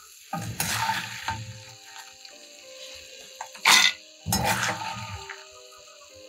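Metal slotted spoon scraping and scooping freshly toasted corn kernels (tostado) in a frying pan, the hard kernels rattling against the metal in three bouts, the loudest a short sharp clatter a little past the middle.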